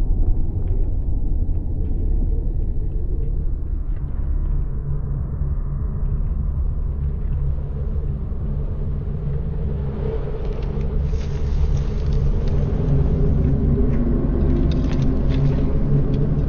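A motor vehicle's engine running with a low, steady rumble; a hiss rises over it about ten seconds in.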